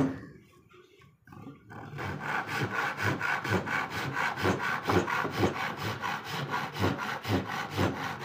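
A single sharp knock, then about two seconds in a handsaw starts cutting into the end of an upright mahogany board, with quick, even back-and-forth strokes about four a second.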